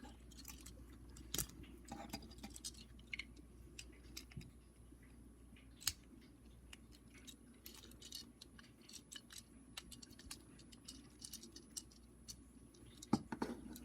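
Small plastic toy parts clicking and scraping as they are handled and pegged into place, with a few sharper snaps: one about a second in, one near the middle and the loudest near the end.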